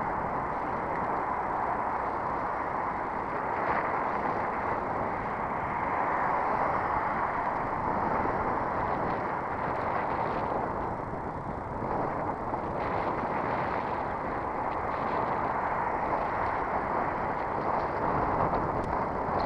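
Steady rushing wind and road noise of a bicycle being ridden, picked up by a camera mounted on the bike.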